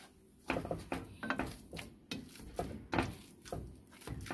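Plastic potato masher pressing boiled potatoes in a nonstick pot: a quick irregular run of soft squashing strokes and knocks against the pan, about three a second.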